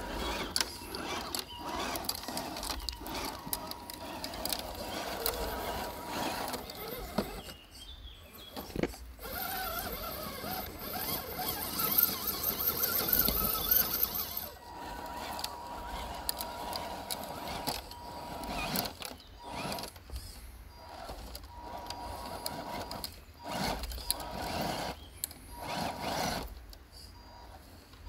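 Radio-controlled scale crawler's small electric motor and gear drivetrain whining as it drives in short runs, stopping and starting. About ten seconds in, a louder, higher whine lasts some four seconds.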